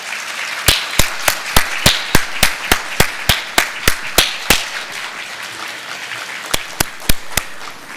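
Audience applauding. One set of louder, close claps comes at about three a second for the first few seconds, then a few scattered claps as the applause dies down near the end.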